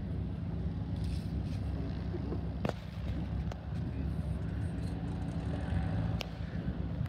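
Small single-engine plane's piston engine idling on the ramp, a steady low drone, with two sharp clicks.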